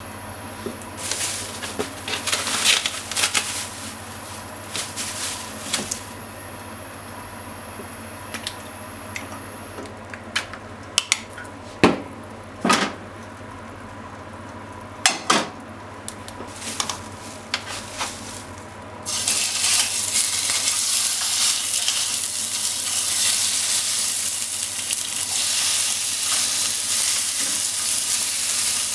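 Kitchen utensils and the frying pan knocking and clattering now and then, then, about two-thirds of the way in, raw bacon strips go into the hot nonstick frying pan and start sizzling loudly and steadily.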